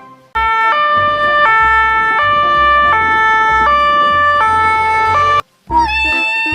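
Two-tone hi-lo ambulance siren, alternating between a high and a low pitch about every three-quarters of a second, then cutting off abruptly about five seconds in.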